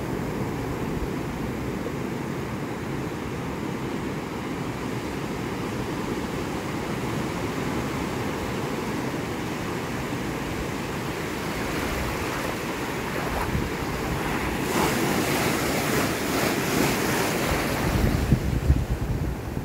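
Pacific surf breaking and washing up the beach in a steady rush, growing louder and hissier in the last few seconds as foam washes in close. Wind buffets the microphone near the end.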